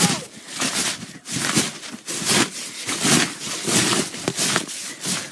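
Someone bouncing on an ice-covered trampoline: a run of rough, noisy bursts about every two-thirds of a second, following the rhythm of the jumps.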